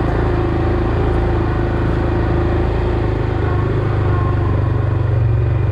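Motor vehicle engine running steadily with a low drone that grows a little stronger about halfway through.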